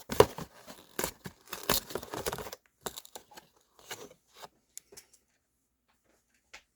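Handling of packaged socks: packaging rustling and crinkling with many sharp clicks for the first two and a half seconds, thinning to a few scattered clicks, with one more click near the end.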